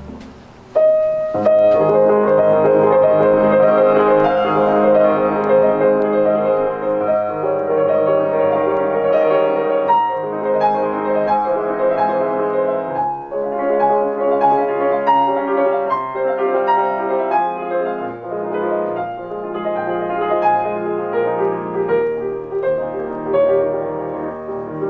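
Yamaha grand piano played solo, starting about a second in: a sweet piece with a melody over held chords.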